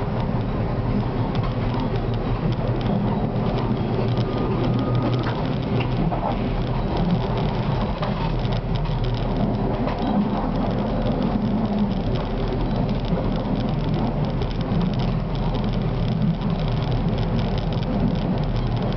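Konstal 105Na tram running along the track, heard from inside the driver's cab: a steady rushing rumble of wheels on rail with a low hum underneath.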